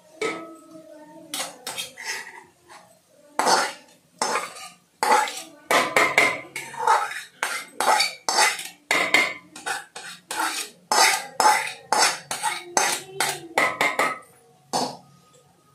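Spoon scraping and clanking against a small aluminium kadhai in an irregular run of knocks, emptying fried grated pumpkin into a pot of milk.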